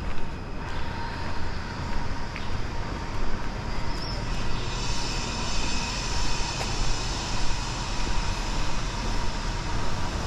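City street traffic: a motor vehicle running close by with a steady low rumble, and a brighter hiss with a faint high whine joining about four seconds in.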